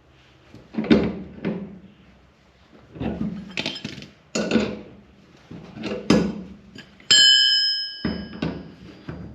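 Irregular knocks and clanks of a metal punch and pliers working a turnbuckle on a shed door latch, about eight in all, with one clear metallic ring about seven seconds in.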